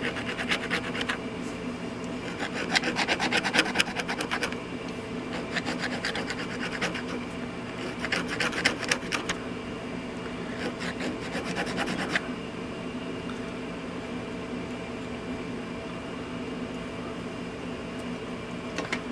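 Fingernail scraping crumbling residue off a decomposing plastic nut-driver handle, in about five bursts of quick rasping strokes that stop about twelve seconds in. A steady low hum continues underneath.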